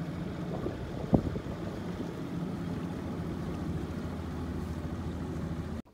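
Boat motor running steadily as the boat cruises, with wind buffeting the microphone and a single thump about a second in. The sound cuts off suddenly near the end.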